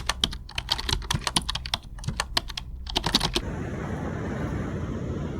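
Rapid, irregular clicking like typing on a keyboard for about three and a half seconds, then a sudden cut to a steady rushing noise of wind and surf.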